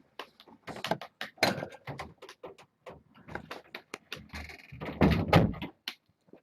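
A door being handled, with a string of irregular knocks and rattles; the loudest cluster comes about five seconds in.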